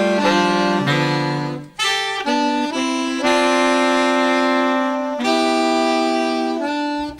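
Saxophone ensemble playing slow, held chords that move to new notes every second or two, with a brief break just before two seconds in.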